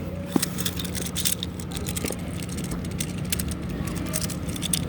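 Fidget toy being clicked and fiddled with, a quick irregular run of small clicks, over a steady low hum.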